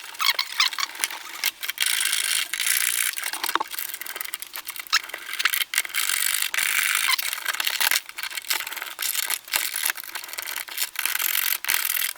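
Wall switches and their wires being pushed back into a switch box: steady scraping of plastic and metal with many sharp clicks and knocks, stopping briefly now and then.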